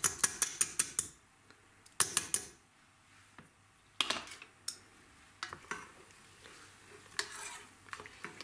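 A fine-mesh metal sieve tapped against the rim of a stainless steel saucepan to knock out soaked millet: a quick run of about eight sharp metallic clicks. More knocks follow about two and four seconds in. Near the end come softer sounds as a wooden spoon stirs the millet into the milk.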